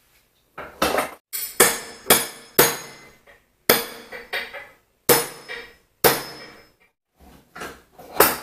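Hammer striking a steel pin punch to drive a pin out of a cast-iron vise's moving jaw: about a dozen sharp metallic blows at an irregular pace, each ringing briefly.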